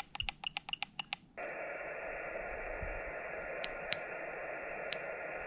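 A quick run of small clicks, then from about a second and a half in the steady hiss of band noise from the Xiegu G90 HF transceiver's speaker, receiving on the 10-metre band in USB, with a few faint clicks over it.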